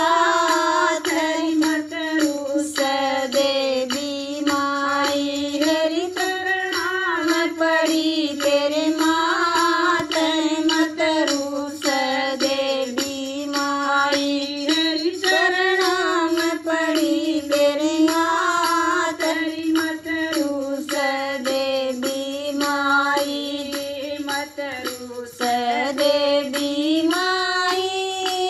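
A Haryanvi devotional bhajan to the Mother Goddess sung by a single high voice in a long, drawn-out melody that rises and falls, with a faint steady beat beneath it.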